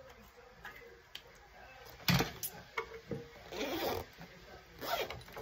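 Handling noises: a thump about two seconds in, followed by rustling and a few light clicks.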